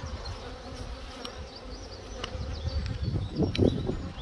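Honeybees buzzing in a steady hum around an opened hive, the colony swarming over a lifted brood frame.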